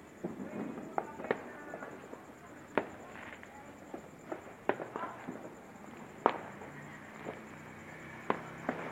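Firecrackers and fireworks going off in scattered single bangs at irregular spacing, about a dozen, some sharp and loud, others fainter.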